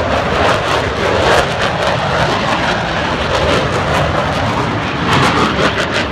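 Jet noise from an F-22 Raptor's twin turbofan engines as the fighter flies its display low over the airfield: a loud, steady rushing roar with a deep rumble underneath.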